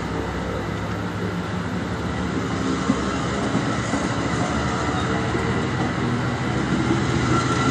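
AMT commuter train's bilevel passenger coaches rolling past close by: a steady rumble of steel wheels on rail, with one sharp click about three seconds in.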